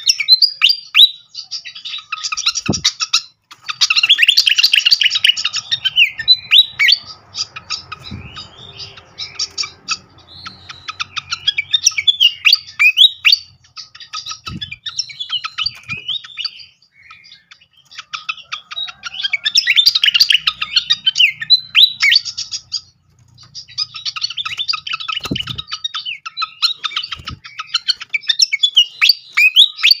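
Caged songbird calling in fast, loud bouts of high chirps and warbled notes, each bout lasting a few seconds with short breaks between. A few soft thumps from the perch or cage are mixed in.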